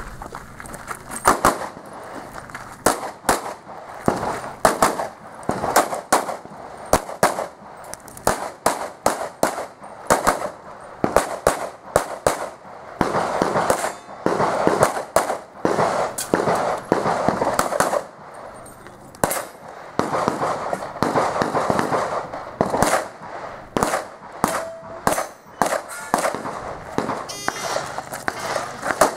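Pistol shots from an IPSC stage run, fired in quick pairs and short strings with brief pauses between volleys as the shooter moves between targets. Near the end, a short electronic shot-timer beep.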